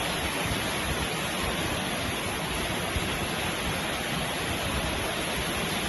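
Steady rushing noise of falling water, an even hiss with no breaks or separate events.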